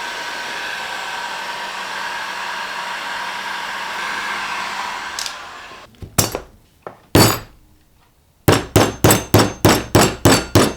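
A heat gun blowing steadily for about five seconds, then fading out. A few seconds later come hammer strikes: two or three at first, then a quick run of about a dozen sharp blows, roughly four a second. The blows are driving a stuck router bit out through the CNC spindle's collet.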